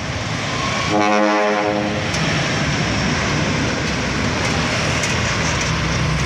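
Large loaded truck driving past close by, engine running and tyres on the road. About a second in, a horn sounds once for about a second.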